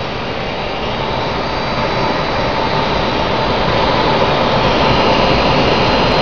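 Active Power flywheel UPS spinning its flywheel back up after a reboot: a steady rush of machine noise with a thin whine, growing slowly louder.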